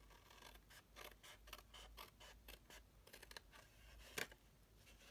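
Small scissors cutting through cardstock in a run of short, irregular snips, with one louder snip about four seconds in.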